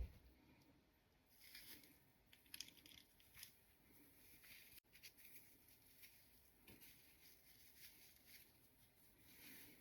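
Near silence with faint, scattered rustling and small ticks of something being handled.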